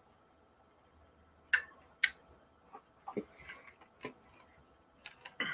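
Eyeglasses and their packaging being handled: two sharp clicks about a second and a half in, then a few softer clicks and light rustling.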